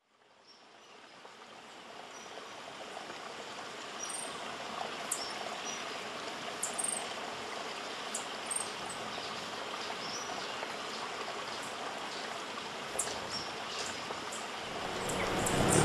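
Cloud-forest ambience fading in over the first few seconds: a steady rush of running water, with short, very high bird chips every second or two.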